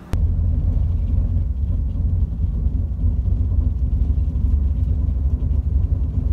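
Steady low rumble of a moving city bus, heard from inside the passenger cabin: engine and road noise.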